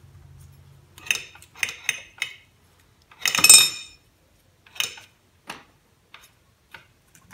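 Metal hand tools and parts clinking and clattering as they are handled and set down: several sharp clicks, a louder ringing clatter about halfway through, then lighter taps.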